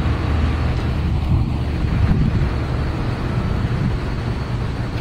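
Street traffic: a steady low rumble of car and bus engines and tyres.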